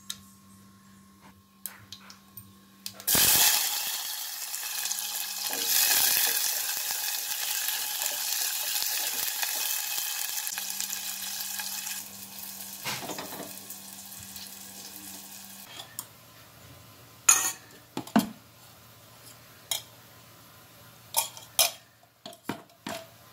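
Hot oil in a clay pot sizzling loudly as ingredients are tipped in about three seconds in, the sizzle settling and dying away over the next several seconds. Near the end come a few sharp metal clinks of pan and utensils on the gas stove.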